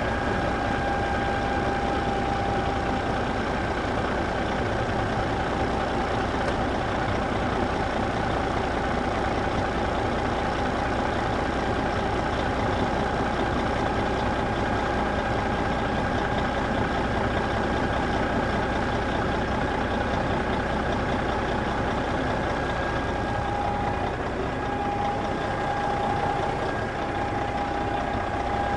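Steady engine-like running sound with a constant high whine, holding level without revving.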